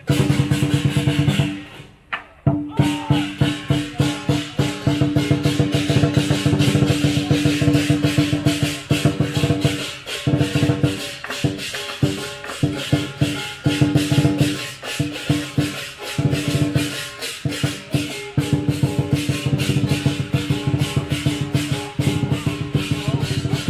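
Chinese lion dance percussion: a large drum and crashing cymbals playing a fast, continuous beat. It breaks off briefly about two seconds in.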